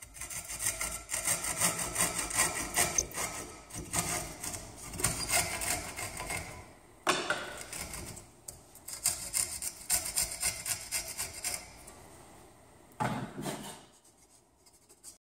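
Handsaw cutting through plywood held in a bench vise, in steady back-and-forth strokes with a brief pause about halfway. Near the end there is a single short thump.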